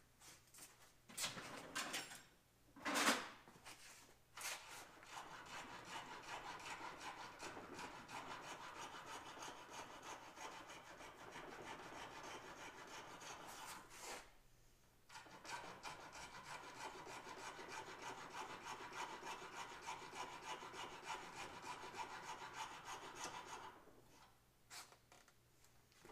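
A small white part clamped in a bench vise being filed by hand: a steady run of scraping strokes in two long spells, with a short break about fourteen seconds in. A few knocks in the first seconds, the loudest about three seconds in.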